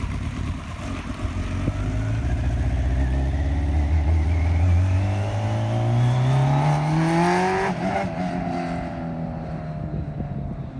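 Kawasaki ZX-10R inline-four motorcycle engine in a Mini, accelerating hard with the revs climbing steadily for about seven seconds. About three-quarters of the way through the revs cut off sharply, then fall away and fade as the car draws off.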